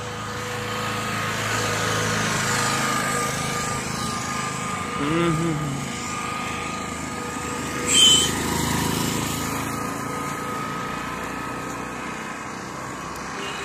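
A motor vehicle with a small, high-revving engine passing on the road. Its engine and tyre noise builds, holds and slowly fades over several seconds. A sharp, high sound about eight seconds in is the loudest moment.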